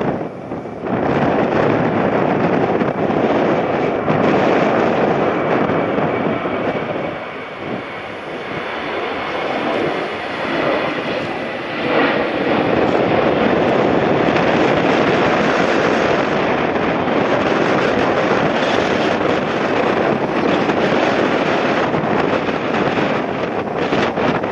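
Boeing 737-800 jet engines running loud and close, mixed with heavy wind buffeting the microphone. The sound eases for a few seconds in the middle and swells again about halfway through.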